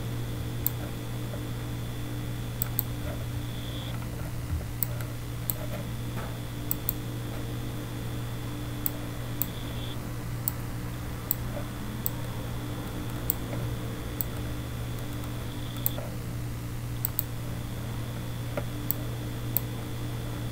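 Steady low hum and a thin high whine from a desktop computer, with scattered light clicks from its mouse or keys as the images are scrolled and changed. The whine stops briefly about every six seconds.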